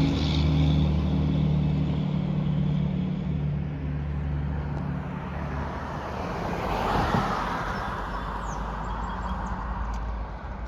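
Street traffic: a motor vehicle's engine hum that fades away over the first few seconds, then a car passing by about seven seconds in, rising and falling.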